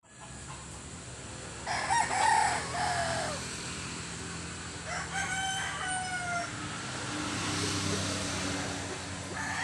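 Roosters crowing: two long crows, one about two seconds in and another about five seconds in, each ending on a falling note, over a steady low hum.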